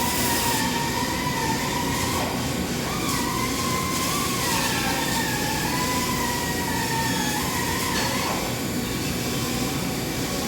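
TIG (gas tungsten arc) welding arc and welding machine running steadily: a constant hiss and hum with a whine that wanders up and down in pitch, shifting in small jumps now and then.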